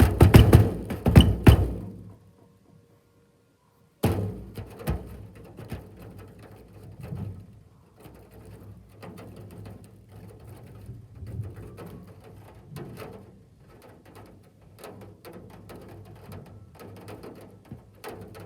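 Large hailstones hammering on the roof and windows in a dense, irregular clatter for about two seconds. After a short silence, the hits come back sparser and quieter.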